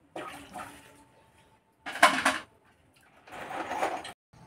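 Hands peeling boiled taro over stainless steel bowls: three short bursts of rubbing and clinking against the steel, the sharpest about two seconds in, followed by a faint ring from the bowl.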